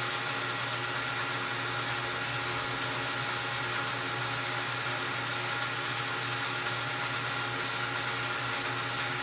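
Metal lathe running steadily under power feed, the carriage driving the cutting tool across a piston.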